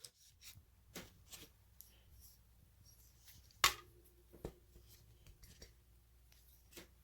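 Light metallic clicks and handling of a POF Renegade Plus AR-15 as its bolt carrier group and charging handle are put back in, with one sharp metal click about halfway through followed by a faint ringing tone.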